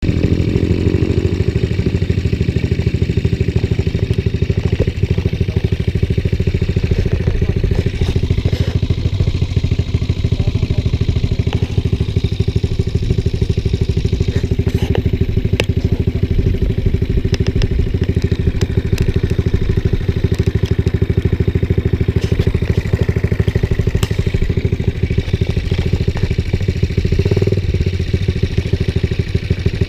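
Motorcycle engine running close by, rising in pitch over the first second and then holding a steady rapid pulse.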